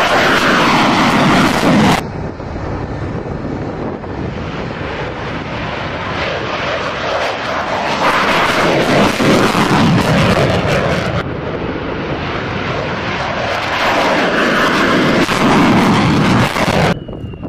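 F-16 fighter jet's engine noise, loud and continuous, as the jet takes off and climbs away. The level steps up and down abruptly a few times.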